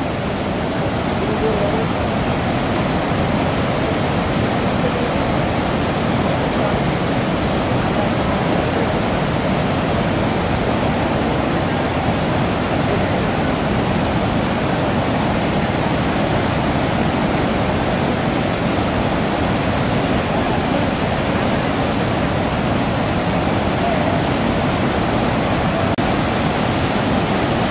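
Steady rush of white water pouring over a river dam's spillway, an even, unbroken wash of noise.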